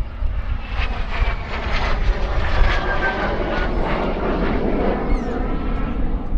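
Morane-Saulnier MS.760 Paris flying a display, its twin Turbomeca Marboré turbojets running with a steady rumble. A high jet whine slides lower in pitch about two to three seconds in.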